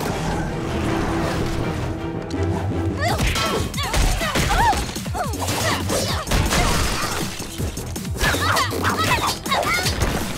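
Animated fight scene: dramatic action music with repeated crashes and smashing impacts as brick walls break apart, starting about three seconds in.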